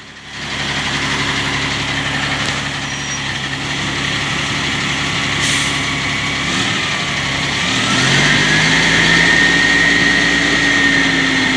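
Diesel engine of a 2007 Sterling L9500 dump truck running with the power take-off engaged to raise the dump bed. About seven seconds in the engine speeds up and a high whine rises with it.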